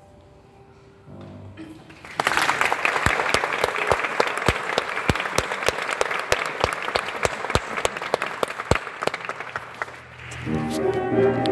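Audience applauding: a burst of clapping begins about two seconds in and dies away after about eight seconds as music starts.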